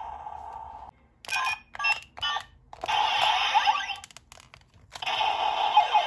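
Toy weapon's electronic gun-mode sound effects through its small built-in speaker: three short blaster-like bursts, then a longer crackling noise with sliding tones, a short pause, and the crackling noise starting again about five seconds in.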